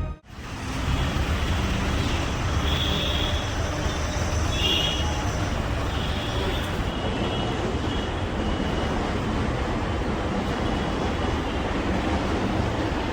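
Steady traffic noise that fades in over the first second, with a few brief high-pitched tones now and then.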